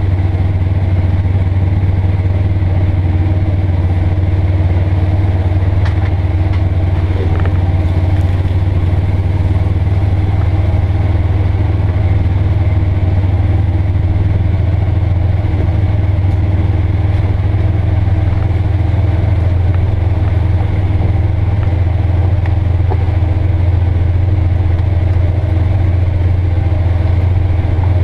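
Polaris Ranger XP 900 UTV's twin-cylinder engine running at a steady speed, a constant low drone that neither rises nor falls, with a few faint clicks about six to eight seconds in.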